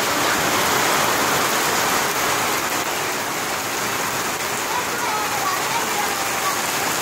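Heavy rain falling steadily on a concrete yard, with a stream of runoff pouring off the roof edge and splashing onto the ground.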